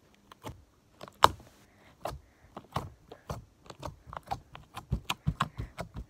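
Rubbery slime being squeezed and worked in the hands, giving a run of irregular sharp clicks and pops, several a second, coming faster and louder from about the middle.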